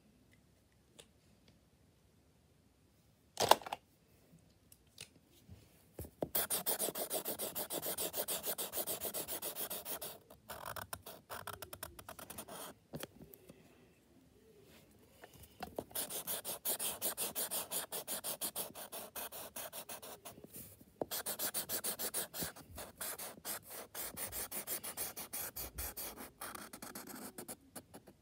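Felt-tip marker scratching across paper in quick back-and-forth colouring strokes, in several long stretches after the first six seconds. One sharp click comes about three and a half seconds in, before the colouring starts.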